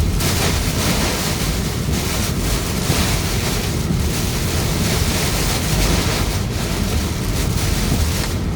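Heavy storm rain and wind pounding a moving car, a loud steady wash of noise with a few brief dips.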